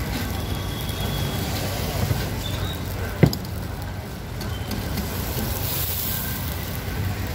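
Dosa sizzling on a hot flat griddle, a steady hiss over the low rumble of street traffic, with one sharp click about three seconds in.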